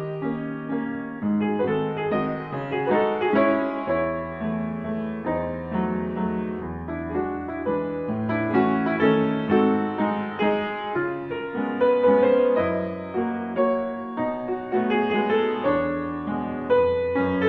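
Background piano music: a gentle sequence of notes over a sustained bass that enters about four seconds in.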